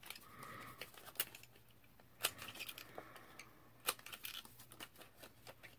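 Faint, sharp clicks a second or so apart as the corners of a paper card are cut round.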